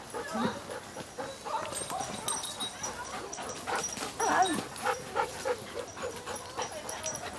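Dogs from a large group giving short whines and yips, the loudest about four seconds in, among scattered clicks and knocks.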